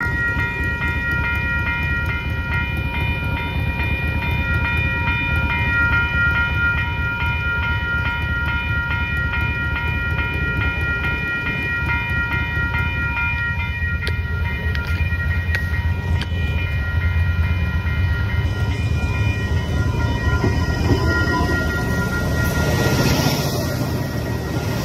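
Level-crossing warning bells ringing in a fast even rhythm over a steady low rumble. From about 18 seconds in, a suburban diesel railcar passes close by, and its rushing, rumbling noise builds towards the end.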